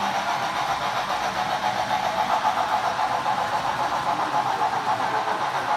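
HO scale model passenger train rolling past close by: a steady whirr of metal wheels on metal rail with a quick, even clatter.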